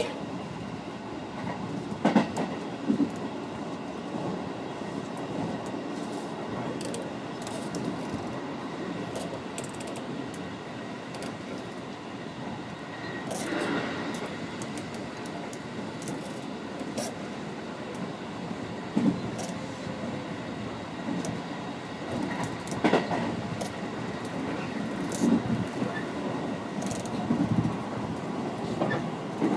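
Train in motion, heard from inside the carriage: a steady running rumble with irregular clacks and knocks from the wheels and track, a few of them louder.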